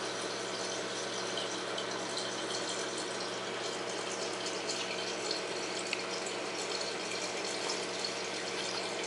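Water running steadily through a saltwater reef aquarium's circulation, with a steady hum beneath it.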